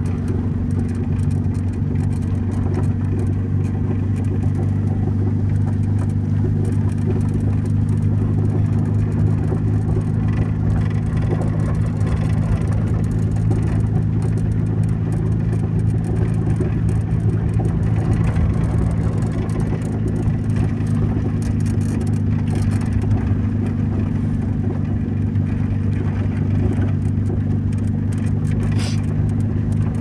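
Car being driven, heard from inside the cabin: a steady low engine and road drone that holds level throughout.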